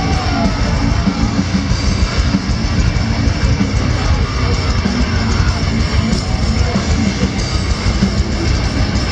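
Live heavy metal band playing loud through a festival PA, with guitars over a dense, pounding low end, heard from inside the crowd.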